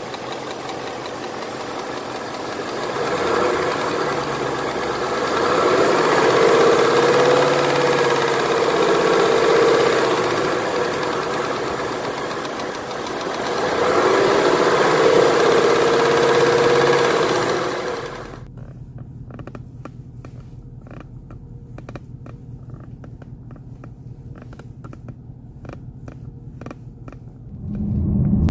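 2018 Mustang GT's 5.0 V8 running under the hood with a ticking that the owner thinks is not normal and says sounds worse than a diesel; it swells twice as it is revved. About 18 seconds in, the sound changes abruptly to a quieter low hum with many sharp irregular clicks and creaks from an interior annoyance that the owner thinks some lube would cure.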